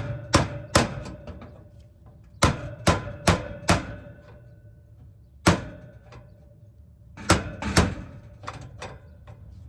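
Hammer blows on a stubborn sheet-metal electrical knockout in a rooftop HVAC unit's cabinet, struck in bursts of two to four sharp metallic hits with pauses between, the knockout not yet giving way.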